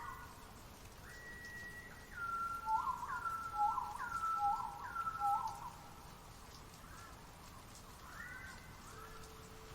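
A bird whistling clear notes: one held note, then four repeats of a phrase (a short rising note followed by a longer steady whistle), then fainter arching whistles near the end.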